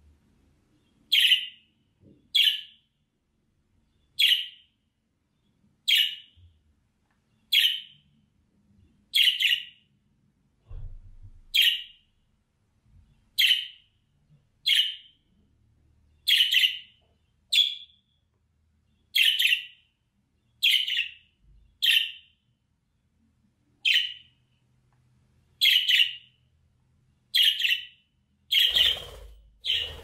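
Budgerigar (budgie) chirping: single short, sharp calls, each dropping slightly in pitch, repeated about every second and a half. A brief rustle comes near the end.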